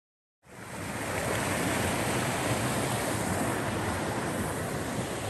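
River water rushing below a footbridge: a steady, even rush of flowing water that fades in about half a second in.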